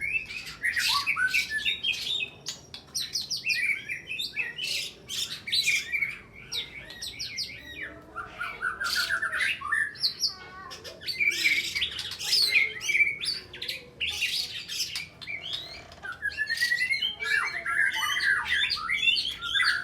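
White-rumped shama (murai batu) singing a fast, non-stop, varied song packed with mimicked small-bird calls, rapid trills and sharp, piercing high notes. This is its aggressive fighting song.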